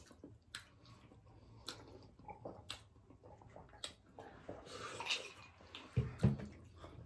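Close-up eating sounds: wet mouth clicks and chewing about once a second, then a stretch of sipping or slurping from a glass about four seconds in. Two dull thumps near the end are the loudest sounds.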